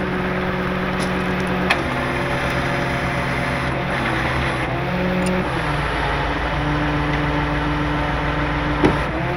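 A tow truck's engine and hydraulics running steadily under load while the wrecker boom lifts. The hum steps to a new pitch a few times as the controls are worked.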